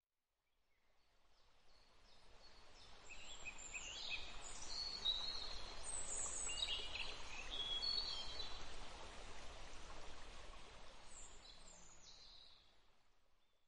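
Outdoor nature ambience: birds chirping and calling in short, quick phrases over a steady background hiss. It fades in after about two seconds and fades out near the end.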